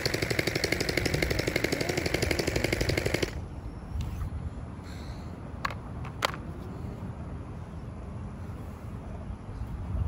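Electric gel blaster firing a full-auto burst of about three seconds: a rapid, even stream of pops that cuts off suddenly. Two sharp clicks follow a few seconds later.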